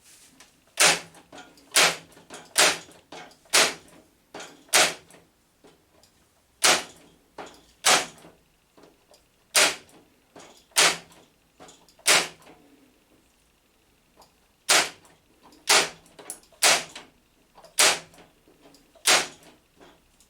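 Parkside PET 25 C2 electric nailer firing brad nails into wood, one after another: about fifteen sharp shots, mostly about a second apart, with a short pause about two-thirds of the way through.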